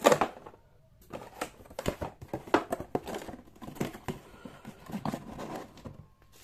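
Unboxing packaging being handled: bubble wrap and cardboard box flaps rustling and crinkling in many short bursts, with a loud knock right at the start.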